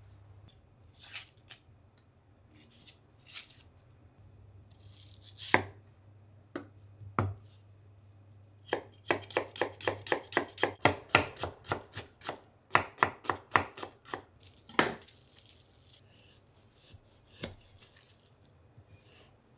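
Kitchen knife cutting an onion on a wooden cutting board. A few scattered cuts give way to a fast, even run of chopping strokes, about four a second, in the middle, then a few slower cuts near the end.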